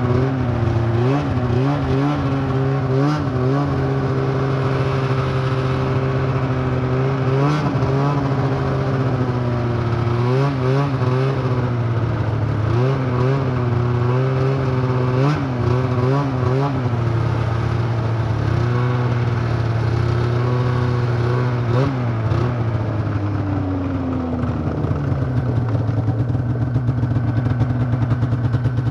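Arctic Cat F7 Firecat snowmobile's two-stroke twin engine running under changing throttle, its pitch rising and falling again and again. About three-quarters of the way through it drops and settles to a steady, lower run.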